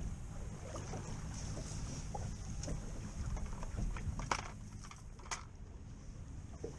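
Steady rumble of wind and sea around a small open fishing boat, with a few sharp clicks and knocks of fishing tackle being handled; the two loudest come about four and five seconds in.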